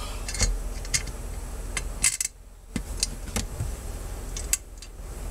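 Irregular light metallic clicks and clinks of bolts, washers and tools being handled while a brace is fitted, over a steady low hum.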